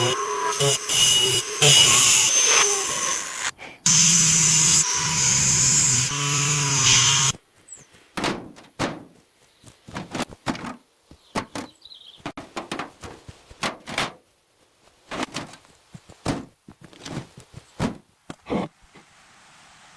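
Construction work: a power tool runs in two loud stretches over the first seven seconds, then irregular knocks and taps follow as material is handled and struck.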